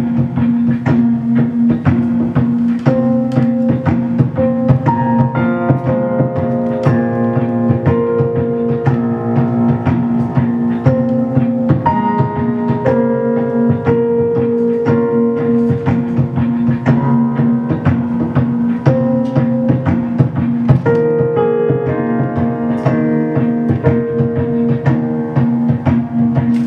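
Instrumental piano music: a held low note runs under shifting piano notes, with a steady, quick percussive beat throughout.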